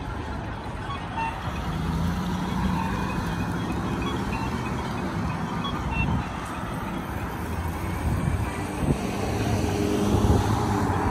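City street traffic: motor vehicles running and passing with a steady low rumble that swells louder near the end.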